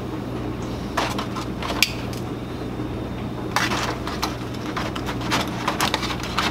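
Metal kitchen tongs clicking and scraping against an aluminium foil packet and a plate as food is served, with the foil crinkling: a few sharp clicks, a longer rustle a little past halfway, and more clicks near the end.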